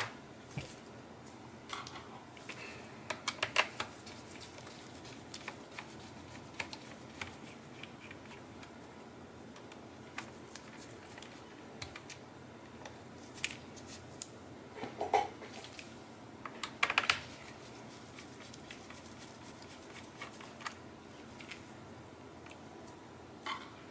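Small screwdriver working screws out of a laptop's plastic screen bezel: scattered light clicks and taps of the driver and plastic being handled, with a few louder bursts of clicking.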